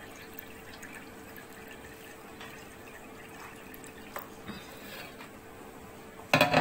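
Water boiling in a pot on the stove: faint steady bubbling and dripping over a low hum. A short, loud clatter comes near the end.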